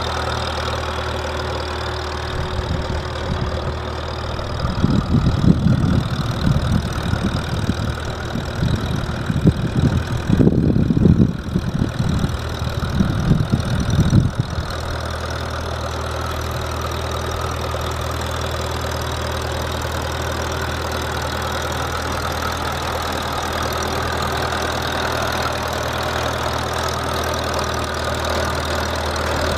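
1944 Farmall Super A's four-cylinder gas engine running steadily as the tractor drives. From about four seconds to about fourteen seconds, loud irregular low rumbling gusts, typical of wind buffeting the microphone, cover it.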